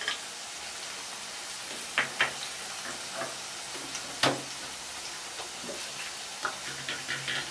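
Potatoes frying in mustard oil in a pan, a steady sizzle. Over it come a few sharp clicks and knocks of dishes and a grinder jar being handled: two about two seconds in, the loudest just after four seconds, and several near the end.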